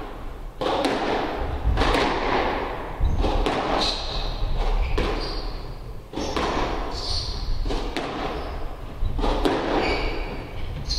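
Squash rally: the ball cracks off the rackets and thuds against the court walls in a run of sharp knocks about once a second, irregularly spaced, each echoing in the court.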